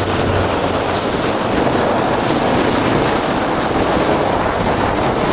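Steady, loud rumbling rush of wheels rolling fast on asphalt with wind buffeting the microphone, at speed downhill behind a racing gravity cart.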